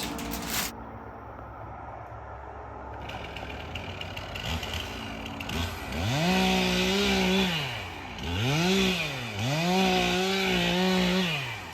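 Stihl MS 362 two-stroke chainsaw engine revved up to full throttle three times from about halfway through, holding a high steady pitch and dropping back briefly between bursts.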